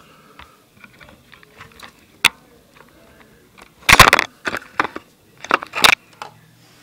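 Close handling noise: a single sharp click about two seconds in, then a cluster of loud rustling and scraping bursts from about four to six seconds in.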